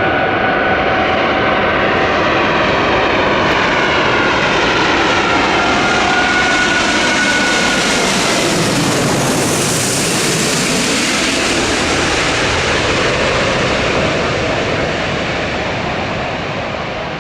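Jet noise from an Airbus A380's four turbofan engines as the airliner passes by, with whining engine tones falling in pitch. The roar is strongest about ten seconds in, then begins to fade.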